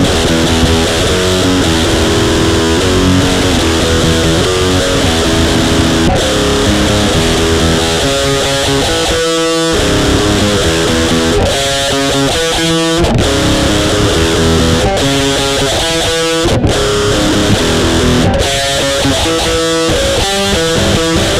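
Heavy distorted electric guitar playing a metal riff on a crunch amp setting with reverb, with a few brief stops between phrases.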